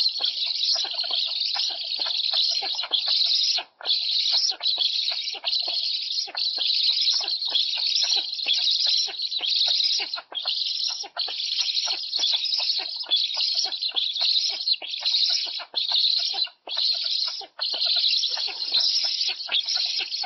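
Young black storks begging for food at the nest, a dense chorus of hoarse, wheezy calls in rapid bursts broken by short gaps, with quick clicks and rustling underneath.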